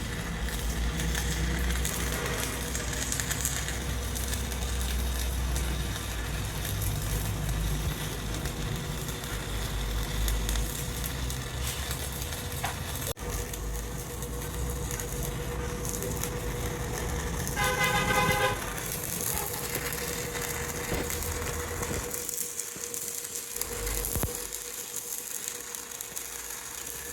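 Steady low rumble of vehicles and workshop noise, with a vehicle horn sounding once for about a second, about two-thirds of the way through.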